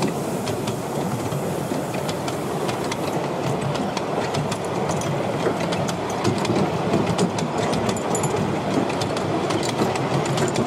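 Miniature railway carriages rolling past on a ground-level track: a steady rumble of steel wheels on the rails, with quick clicks of the wheels over rail joints.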